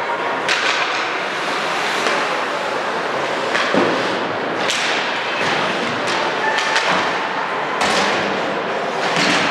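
Ringette game play in an ice arena: about eight sharp knocks and clacks of sticks, ring and boards, spread irregularly, over steady arena noise.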